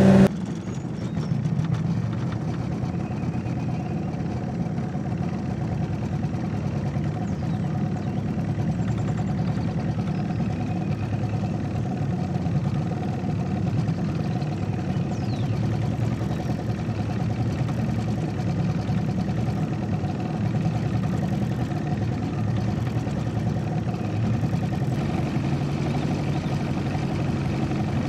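Small boat outboard motor running steadily at low throttle, pushing an aluminium jon boat slowly along.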